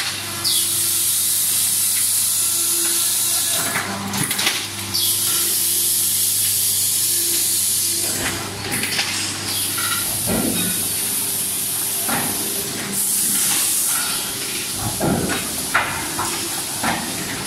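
Steel pail body forming machine running: a steady machine hum under a loud high hiss that comes and goes in stretches of a few seconds. Scattered knocks and clatter from the machinery come about ten seconds in and again near the end.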